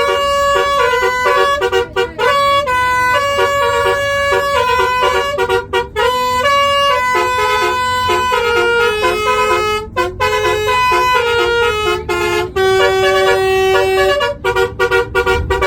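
Basuri 'telolet' multi-tone bus horn playing a melody: a fast run of loud horn notes stepping up and down in pitch, with a few brief breaks between phrases.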